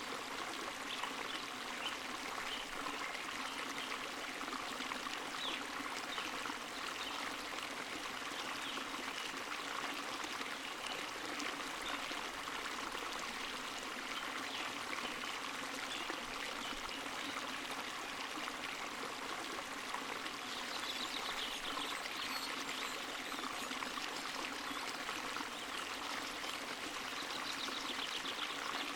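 Small stream of spring water running and trickling steadily, an even splashing and gurgling without pause.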